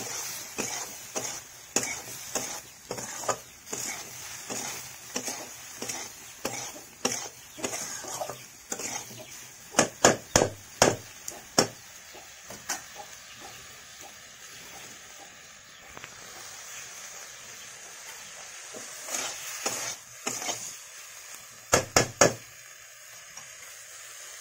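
A metal spatula stirring and scraping spiced cauliflower and potato in a kadhai over a wood fire, about two strokes a second, with a steady sizzle of frying underneath. The stirring stops about halfway and the sizzle carries on. Two clusters of sharp knocks of the spatula on the pan are the loudest sounds, one near the middle and one near the end.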